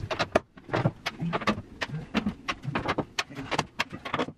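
Sharp, irregular metal clicks and knocks, several a second, from a roof-rail bolt being worked by hand up in the bare metal roof of a Mercedes Sprinter van.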